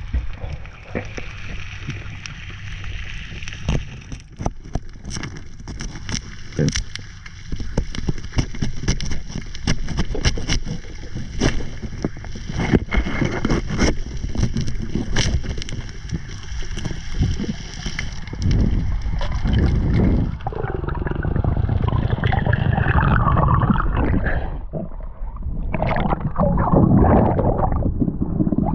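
Sea water sloshing and gurgling around a diver, with many sharp clicks and knocks through the middle; the sloshing grows louder near the end.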